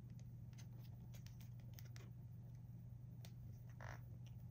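Near silence: a steady low hum with faint scattered clicks, and a brief soft rustle a little before the end.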